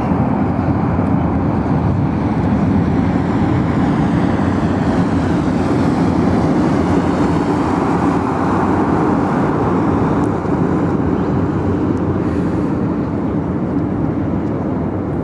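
Airbus A340-300's four jet engines heard from a distance as the airliner rolls out on the runway after landing: a steady, loud rumble with a hiss above it that slowly sweeps in pitch.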